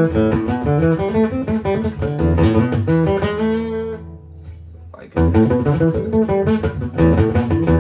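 Acoustic-electric guitar played through an amplifier, a run of plucked notes and chords. About four seconds in the playing drops to a brief quiet lull, then resumes at full level about a second later.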